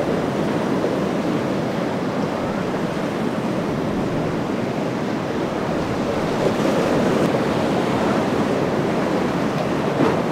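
Rough surf in a steady rush of breaking waves, with wind buffeting the microphone.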